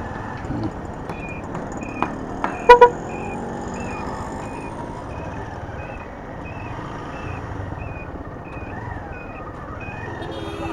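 Road traffic heard from a moving motorcycle: a steady rush of engine, tyre and wind noise, with two short, loud horn toots about two and a half seconds in. Through most of it a regular series of short, high beeps repeats about twice a second.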